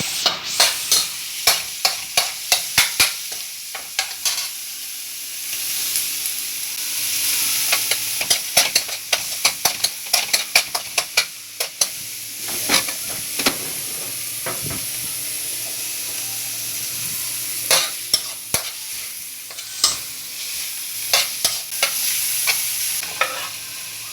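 Stir-frying: food sizzling in hot oil in a pan while a spatula scrapes and clacks against the pan in quick, irregular strokes, with pauses where only the sizzle goes on.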